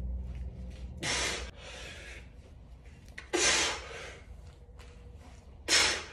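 A man's hard, forceful breaths, three in a few seconds: about a second in, midway and near the end. They come from heavy exertion during kettlebell cleans, squats and push presses.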